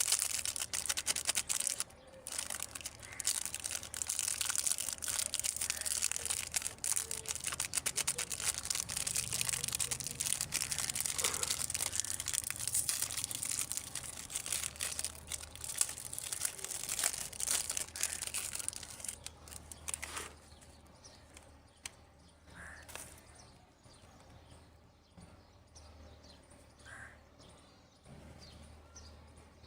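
Plastic candy packaging crinkling and tearing as it is handled and opened, a dense crackle for about twenty seconds, then quieter, scattered crackles and small clicks.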